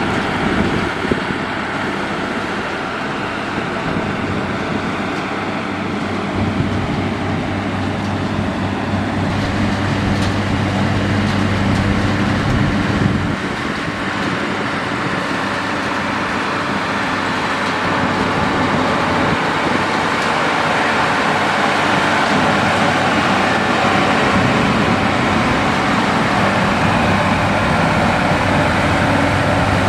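Heavy diesel construction machinery running steadily: a continuous engine drone with a low hum.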